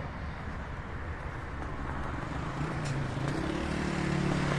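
Street traffic noise: a steady rumble of passing vehicles, with a motor vehicle's engine hum coming in about halfway through and growing louder as it approaches.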